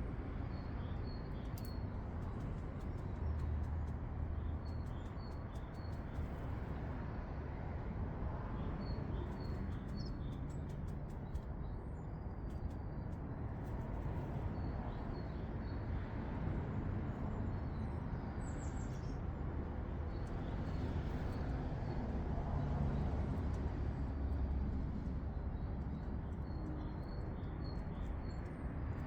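Small garden birds giving short, high chirps in little runs of a few notes, faint against a steady low background rumble.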